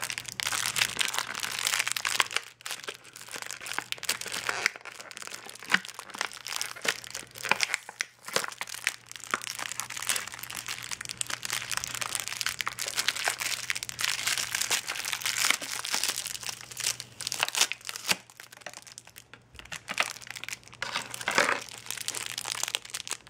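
Thin clear plastic bag and blister packaging crinkling and crackling as it is handled and squeezed, in a near-continuous run of small crackles with a few short pauses.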